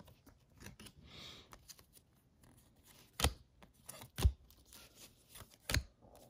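Baseball cards being flipped through by hand. There is a soft rustle of card stock sliding a little after the start, then three sharp clicks as cards are pulled off the stack in the second half.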